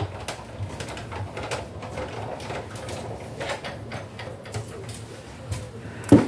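Die-cutting machine running a die and card sandwich through its rollers, a steady low rumble with small clicks, ending in a sharp knock about six seconds in.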